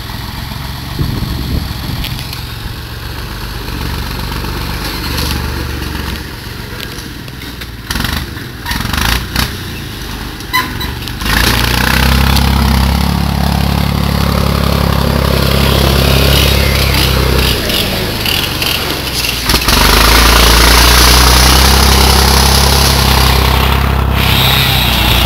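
Engine of a yellow loader tractor running steadily, getting louder about eleven seconds in and again near twenty seconds. A few sharp knocks come shortly before the first rise.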